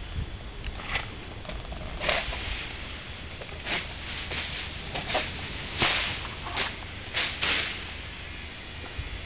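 A series of short, sharp swishes or rustles at irregular intervals, about eight in all, the loudest about six seconds in, over a low steady rumble.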